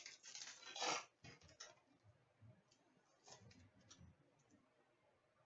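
Faint rustling and light clicks of trading cards and foil pack wrappers being handled, with a louder brief rustle in the first second.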